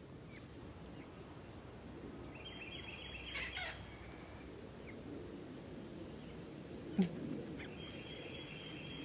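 Backyard chickens giving high trilling chirps in two bouts, about three seconds in and near the end, over a low outdoor background. A single sharp knock about seven seconds in.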